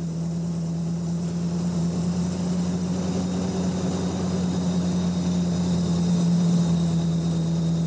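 Lada four-cylinder engine held at steady high revs while it drives a hydraulic gear pump that powers the wheels. It is working under heavy load, and the drone grows slowly louder.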